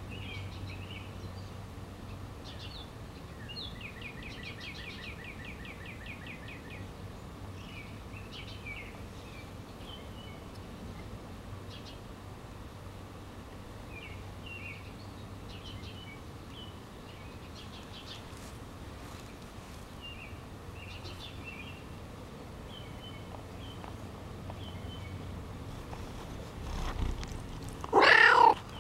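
Small birds chirping in the background, with scattered calls and one rapid trill, then near the end a domestic cat gives a single loud meow close up.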